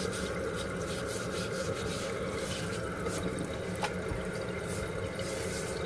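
Water running steadily into a toilet tank from the opened supply, with one sharp click about four seconds in.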